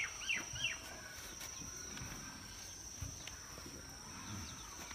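Outdoor rural ambience: three short falling bird chirps in the first second, over a steady high insect drone, with faint rustles and a dull thump about three seconds in.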